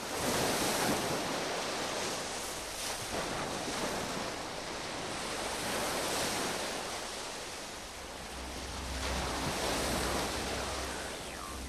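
Steady rushing noise that slowly swells and eases, like wind or surf laid under a title card. A low rumbling drone joins about eight seconds in.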